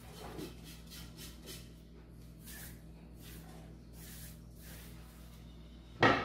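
Kitchen handling sounds: a wooden cutting board being moved about at the sink and a hand brushing crumbs across a granite countertop, heard as faint scattered rustles and taps over a low steady hum. Near the end comes a single sharp knock as something is set down.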